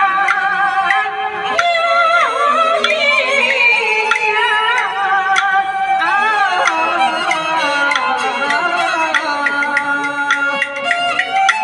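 Live Chinese opera music: a woman singing a xiaosheng (young male) role into a handheld microphone, with a wavering high-pitched bowed fiddle and sharp wooden percussion clicks accompanying.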